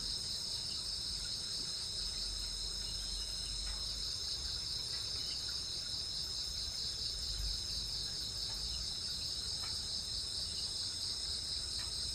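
Steady night chorus of insects such as crickets, a fast pulsing high trill that runs on without a break, with a fainter, higher steady buzz above it.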